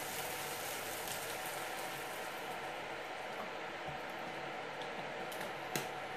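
Frying pan of onions and tomatoes sizzling and simmering steadily as orange juice is poured in to deglaze it. A single sharp click comes near the end.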